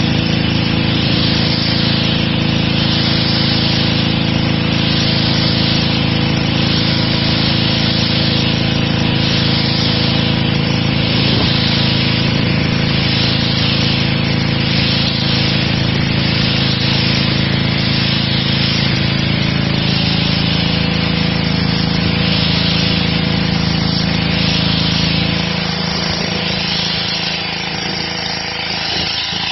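Petrol-engined high-pressure washer running steadily, its engine note under the hiss of the water jet blasting dirt off stone patio slabs. The hiss swells and fades about once a second, and the sound drops a little near the end.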